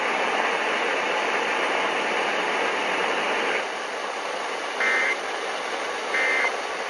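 Steady radio static hiss, which drops a little about three and a half seconds in. It is followed by two short bursts of Emergency Alert System end-of-message data tones, about a second and a half apart, the loudest sounds here.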